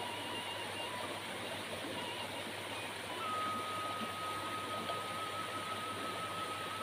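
Shallow rocky stream rushing steadily over stones. A thin, steady high tone joins about three seconds in and holds with a slight waver.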